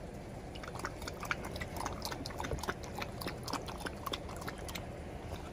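Pit bull puppy lapping from a stainless steel bowl: a rapid, irregular run of small wet licks and clicks.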